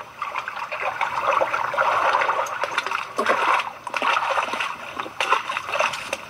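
Water in a shallow stream splashing and trickling, with many irregular splashes.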